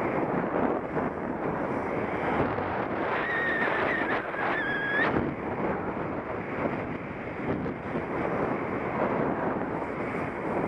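Wind rushing over the microphone while skiing downhill, mixed with skis scraping over packed snow. About three to five seconds in, a short high-pitched tone sounds twice.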